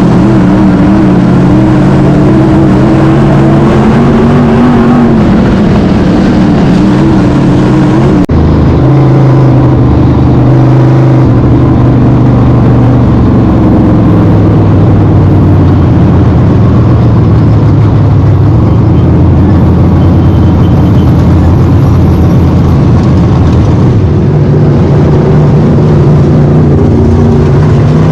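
Race car engine running loud at racing speed, its pitch rising and falling as it accelerates and lifts. The sound breaks off abruptly about eight seconds in and carries straight on.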